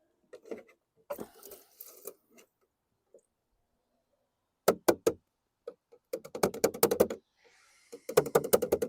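Runs of rapid light clicking and knocking, plastic on plastic, while a turkey baster draws old fuel from a lawn mower's gas tank and squirts it into a plastic jug.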